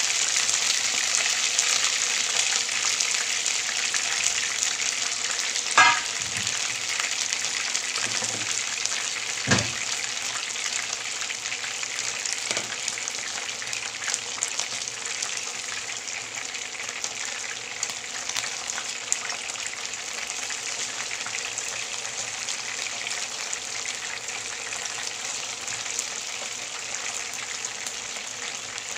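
Flour-breaded chicken pieces shallow-frying in oil in a pan: a steady sizzle that slowly grows quieter, with two louder sharp pops about six and nine and a half seconds in.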